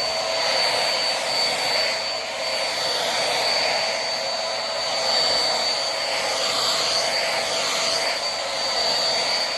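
Corded vacuum cleaner running with its bristle head fitted, a steady loud motor whine over a rushing hiss of air.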